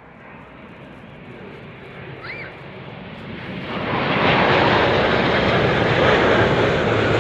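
Airbus A350-1041 airliner on landing approach, its Rolls-Royce Trent XWB turbofans growing louder over about four seconds as it nears, then holding loud as it passes close by.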